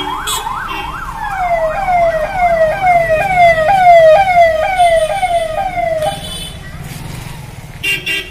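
A vehicle siren sounds a fast up-and-down yelp, then switches to a repeating falling sweep about twice a second and cuts off about six seconds in. A short car horn blast comes near the end.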